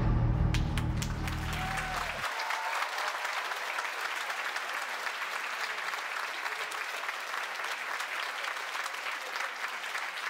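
Audience applauding. The deep, drum-heavy end of the backing music dies away about two seconds in, leaving only the clapping.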